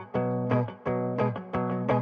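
Guitar music: plucked chords and notes in a quick, steady rhythm.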